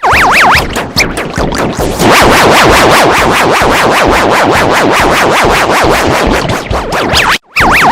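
Loud, heavily processed electronic music with a fast, even pulsing beat. A whistle-like tone swoops rapidly up and down at the start and again near the end, with a brief cut to silence just before the end.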